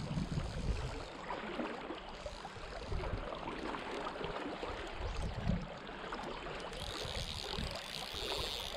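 River water flowing and lapping around a boat, with uneven low rumbles of wind on the microphone. A higher hiss joins for the last couple of seconds.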